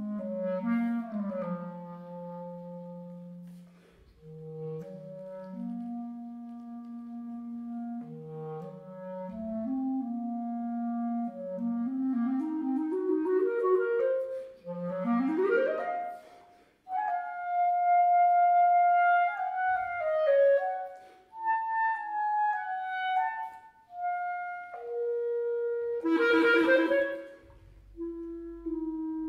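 Unaccompanied clarinet playing a slow rhapsodic solo of held notes and climbing runs, with a fast upward sweep about halfway through, high sustained notes after it, and a loud, rough-edged note near the end.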